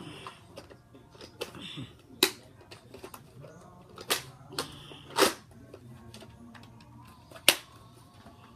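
Sharp clacks of a Nerf Rival Apollo XV-700 blaster being primed and fired, a handful of single snaps spread out, the loudest about five seconds in.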